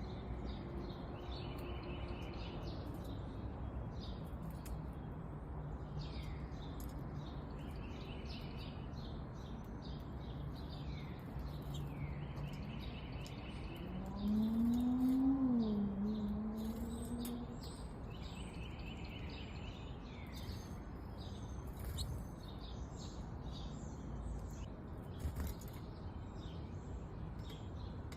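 Small songbirds at a feeder calling, with one bird repeating a short song about every five seconds: a down-slurred note followed by a buzzy trill, among scattered high chips. About halfway through, a louder, lower drawn-out sound rises, dips and then holds in pitch for about three seconds.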